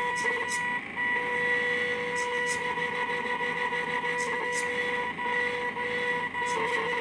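Small DVD-drive stepper motors whining steadily at one pitch as a homemade Arduino CNC plotter moves, the whine breaking off briefly now and then. Pairs of short, faint high ticks come about every two seconds.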